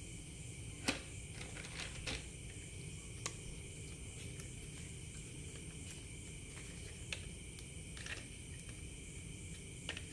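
Hard plastic toy truck parts clicking and knocking as they are handled, a handful of sharp clacks scattered through, the loudest about a second in, over a steady high-pitched background hiss.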